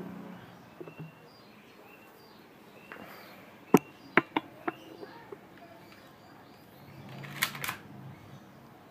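Sharp clicks and knocks from handling: four in quick succession about four seconds in and a louder pair near the end. Faint bird chirps sound in the background.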